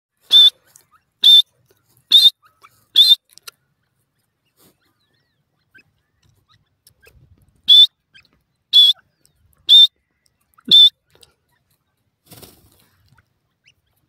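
Young grey francolin peeping: eight short, high, sharp calls in two runs of four, about one a second, with a pause of about four seconds between the runs.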